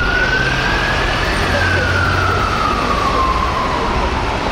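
Fire truck siren on a slow wail: the pitch climbs for about a second, falls slowly over the next three seconds, and starts to rise again near the end, over steady traffic noise.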